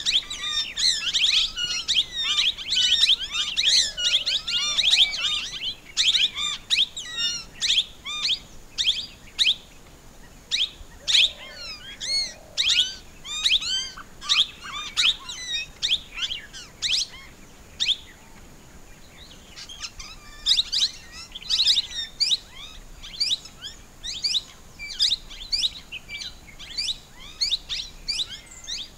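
Plum-headed parakeet calling: a rapid series of short, high-pitched notes that rise and fall, thickest over the first few seconds, with a short lull about two-thirds of the way through before the calls resume.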